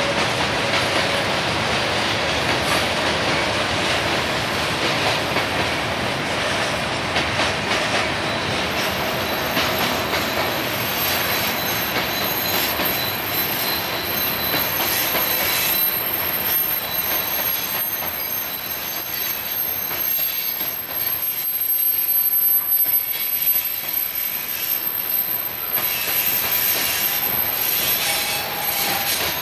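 Covered hopper cars of a freight grain train rolling past on steel wheels, a steady rumble and clatter of wheels on rail. A thin high-pitched wheel squeal comes in about nine seconds in and holds on.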